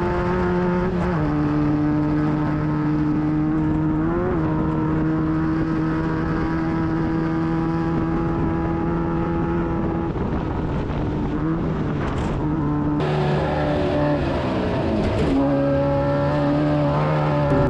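Class 9 VW buggy's air-cooled Volkswagen engine running hard at steady revs while racing, its pitch dropping about a second in and rising briefly around four seconds. Over the last several seconds the revs swing up and down.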